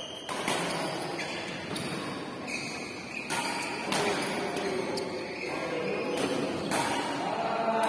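A few sharp knocks spread across several seconds, the loudest near the end, over an indistinct background of voices in an echoing hall.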